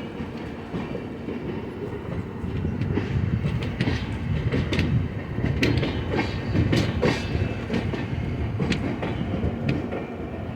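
Train rolling into a station: a steady low rumble of the wheels on the track, with irregular sharp clacks and knocks as the wheels run over rail joints. The clacks come more often after the first few seconds.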